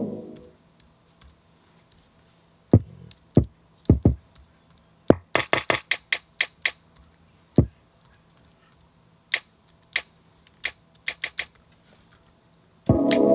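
Sparse, irregular electronic drum hits from an OP-1 synthesizer played one at a time: a few kick drums that drop in pitch, and runs of short, clicky hi-hat-like taps with gaps between. A full beat comes back in near the end.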